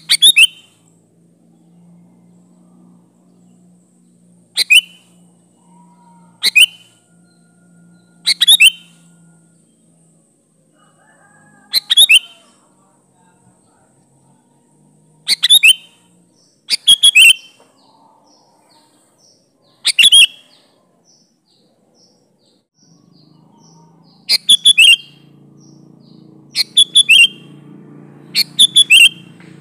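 Sooty-headed bulbul (kutilang) singing in short, loud phrases, about a dozen a few seconds apart, each a quick run of notes falling in pitch. The phrases come closer together near the end, over a faint low hum.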